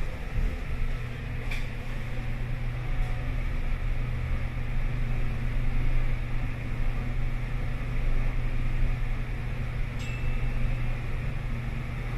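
Inside a Mitsubishi ELEPAQ-i passenger elevator car travelling down: a steady low hum and rumble of the ride, with a couple of light clicks.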